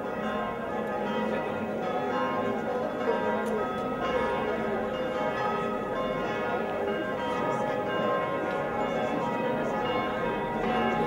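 Church bells ringing steadily, with several ringing tones overlapping.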